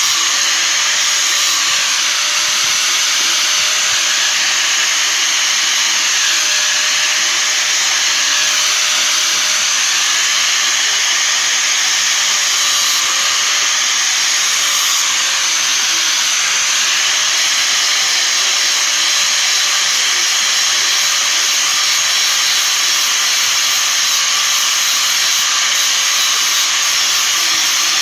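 Electric grinder running without a break, its wheel grinding metal with a steady hiss over a faint motor hum.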